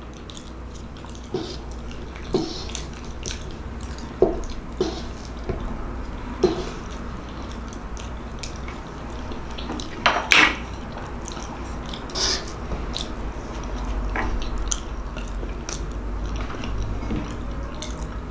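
Close-miked chewing and mouth sounds of a person eating soft food, with scattered small wet clicks and smacks and a louder one about ten seconds in, over a low steady hum.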